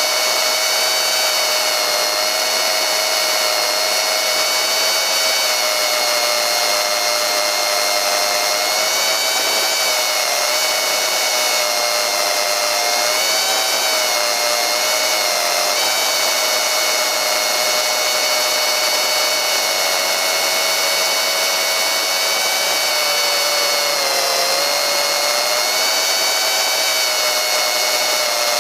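Electric motor and pusher propeller of a small FPV model plane whining steadily, the pitch dipping and rising a little a few times as the throttle changes.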